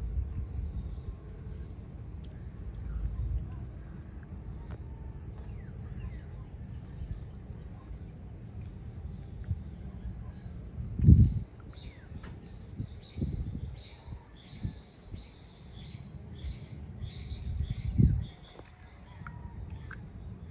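Evening outdoor ambience: insects buzzing steadily in high continuous tones, with scattered bird calls and a run of repeated chirps in the second half. A low rumble underlies it, swelling twice into louder low surges about eleven and eighteen seconds in.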